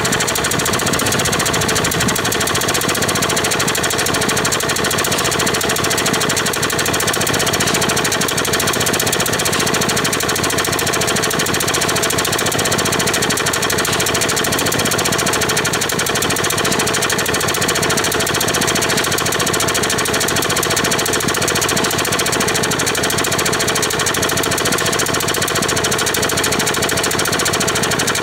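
Rover lawn mower's small engine running steadily and loudly with a rapid, uneven firing beat. It is running slow and weak while putting out a lot of black smoke, which the owner takes as a sign that something is still wrong even after a new spark plug.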